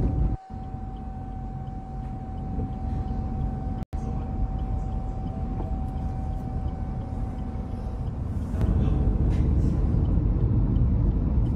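Road traffic running: a steady low vehicle rumble with a faint steady whine over it, cut off twice for a moment. The rumble grows louder about eight and a half seconds in.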